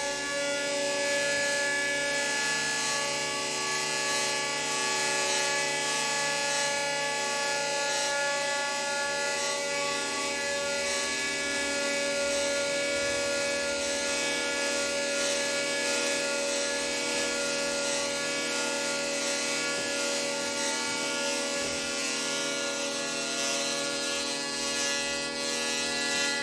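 Hurdy-gurdy played as a noisy drone: the wheel grinds against the strings, holding several steady tones under a rasping, scraping hiss.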